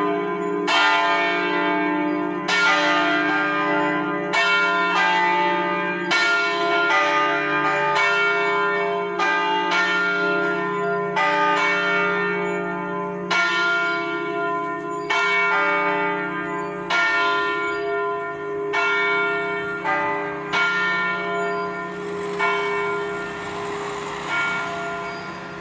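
Church bells rung 'a stanga', swung by hand with a wooden lever on the headstock, striking irregularly about once a second in several pitches over a lasting hum. The strokes thin out, the last about three-quarters of the way through, and the hum then fades away.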